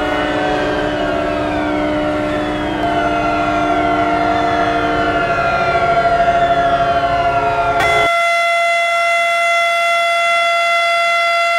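Civil defence sirens sounding the nationwide mourning signal for a moment of silence, layered with held horns: several steady tones over a low rumble, with falling glides crossing them. About eight seconds in the sound cuts abruptly to a cleaner, steady siren tone with the rumble gone.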